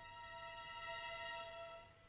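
Quiet background music: a violin holding a long, sustained note that fades away near the end.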